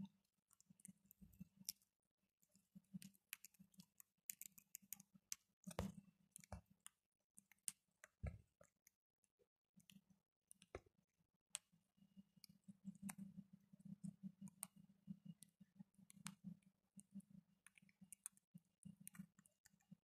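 Faint, scattered clicks of parakeets' beaks nibbling and cracking dry food and tapping a bowl as they eat.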